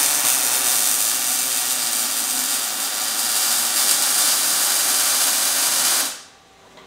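MIG (wire-feed) welder arc laying a practice bead on a steel tube test piece: a steady sizzling hiss that stops about six seconds in. It is a test weld to check the wire speed and voltage settings.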